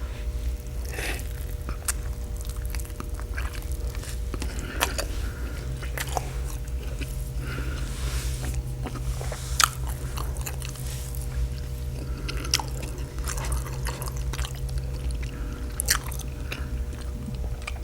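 Close-miked chewing and biting of a juicy birria beef taco, with many short, irregular clicks from the mouth.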